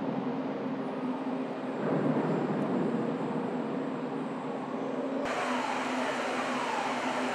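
Steady drone of heavy machinery aboard the heavy-lift vessel Pioneering Spirit, with a few steady hum tones. About five seconds in the sound changes abruptly to a brighter hiss, and a faint falling whine repeats about every second and a half.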